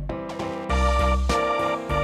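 Lively instrumental background music with a steady beat.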